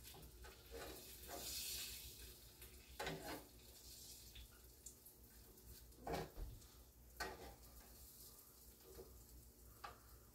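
Faint, scattered kitchen handling sounds: light knocks and clinks of dishes and utensils, with a soft hiss in the first couple of seconds, over a low steady hum.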